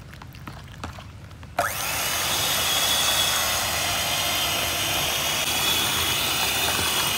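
A few light knocks, then an electric kitchen appliance motor switches on suddenly about a second and a half in and runs steadily with a high whine, as when processing avocado for ice cream.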